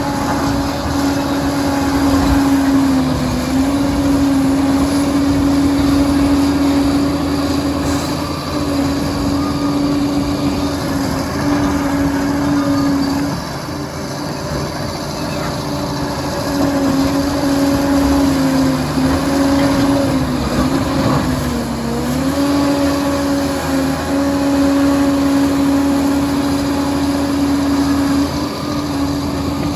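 Liebherr 746 crawler dozer running steadily with a high, steady whine over the diesel engine. The whine dips briefly in pitch a few times and drops out for a few seconds around the middle.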